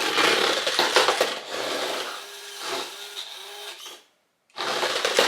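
WPL D12 RC truck's small electric motor whining while the truck's plastic body and tyres scrape and rattle across a hard floor; the motor comes in short bursts in the middle. The sound drops out completely for about half a second near the end, then the rattling scrape returns.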